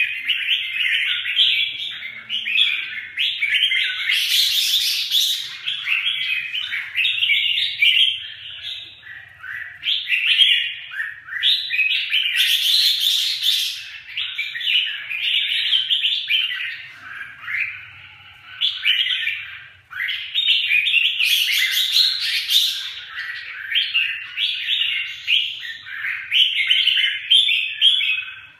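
Red-whiskered bulbuls singing without pause: a dense stream of short, quickly changing chirped phrases. Three times, roughly eight seconds apart, the song breaks into a louder, harsher burst.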